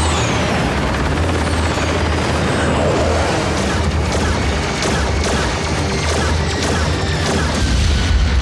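Sci-fi cartoon battle sound effects: rapid laser blasts and explosions, with several falling, whistling zaps over a steady low rumble, under a dramatic music score.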